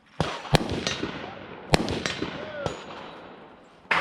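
Five gunshots at uneven spacing, each followed by a rolling echo, from a competitor shooting a match stage.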